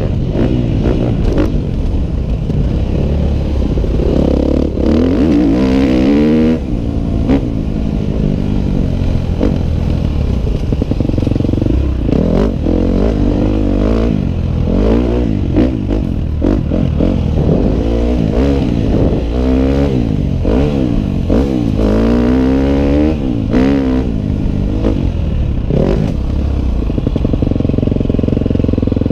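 Dirt bike engine heard close up, its pitch climbing and dropping over and over as the rider accelerates, shifts and backs off along a dirt track, with scattered knocks and clatter from bumps.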